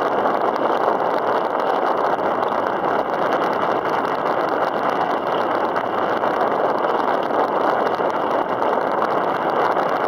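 Steady rushing noise of wind and choppy open water around a kayak, with no distinct paddle strokes or engine note.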